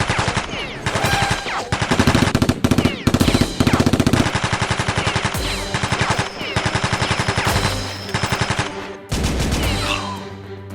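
Machine-gun sound effect: repeated bursts of rapid automatic gunfire, each burst lasting under a second.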